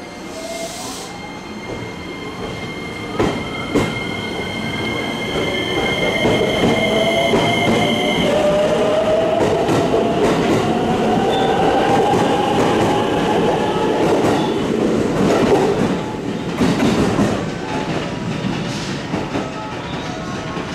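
JR West 225 series electric train pulling out of the station. A brief hiss comes at the start, then the motors whine, rising steadily in pitch as it accelerates past. The wheels click over rail joints as the cars go by, and the sound fades near the end.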